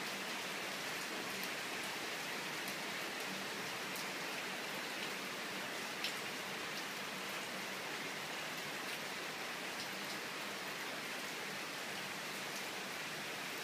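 Heavy downpour of a sudden summer cloudburst, rain falling steadily on pavement and shelter roofs, with a few single drops ticking sharply close by, the clearest about six seconds in.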